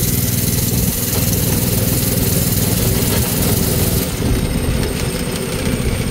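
Harbor Freight Predator 212 single-cylinder four-stroke engine of a mini NASCAR-style go-kart, running steadily as the kart is driven along.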